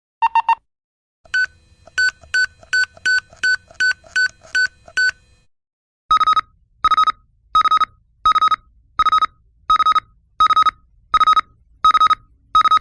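Electronic device beeps in three groups. First a quick double beep. From about a second in comes a run of about ten short, high beeps, roughly three a second, and from about six seconds in a slower series of slightly lower beeps, about one every 0.7 seconds.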